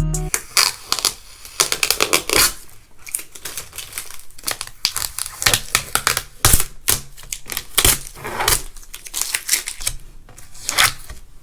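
Stickers being picked at with a fingernail and peeled off a glass tabletop: a fast, irregular run of clicks, ticks and crackling tears.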